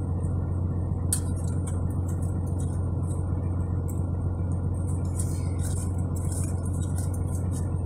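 Steady low hum of an idling truck engine heard inside the cab, with light scattered clinks and rustles as the air fryer basket and chicken tenders are handled.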